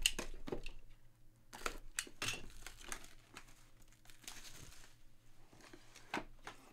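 Plastic shrink wrap on a sealed trading-card box crinkling and tearing as its red tear strip is pulled off, in a run of short, sharp crackles, with rustling of cardboard boxes being handled.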